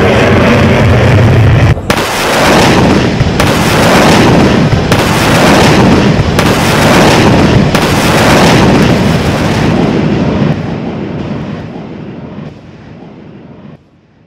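Loud fighter-jet roar sound effect played as a comic fart. From about two seconds in, a blast repeats about every one and a half seconds, then the sound fades away over the last few seconds.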